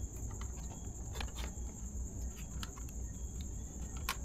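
A few light clicks and taps of plastic instrument-cluster parts being handled and pressed into place by hand, over a steady high-pitched whine and a low hum.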